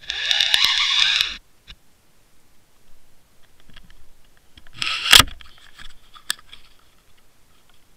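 Water rushing past an underwater fishing camera as it is reeled up on the line, stopping after about a second. About five seconds in comes one loud knock in a short burst of water noise, followed by a few fainter knocks and clicks.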